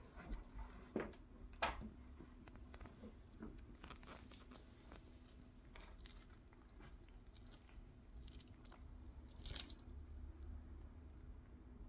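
Cat grooming close to the microphone: faint licking and nibbling clicks at her paw and fur, with a louder rustle near the end.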